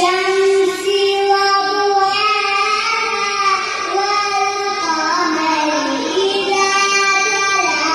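A child reciting the Quran in a melodic chant, holding long drawn-out notes that slowly rise and fall in pitch.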